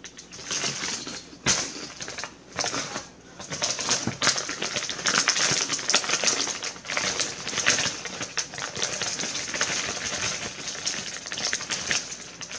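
Close-up crunching of kettle-cooked jalapeño potato chips being chewed, mixed with the crinkling of the chip bag as it is handled. There is a sharp crack about a second and a half in.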